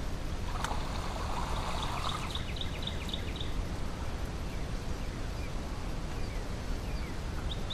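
Open-water outdoor ambience: a steady low rumble of wind, with faint bird chirps and a brief hiss between about half a second and two and a half seconds in.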